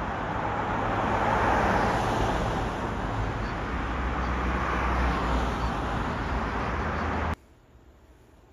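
Steady city road traffic noise, a rumble and hiss of passing vehicles. It cuts off abruptly about seven seconds in, leaving only faint room tone.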